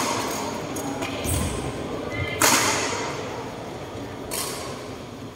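Badminton rackets striking a shuttlecock: two sharp hits ringing out in a large echoing hall, a loud one about two and a half seconds in and a lighter one a couple of seconds later, with a dull footfall thud before them.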